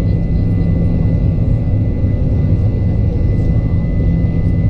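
Boeing 737-900's CFM56-7B jet engines during the climb after takeoff: a steady, loud low drone with a faint steady high tone above it.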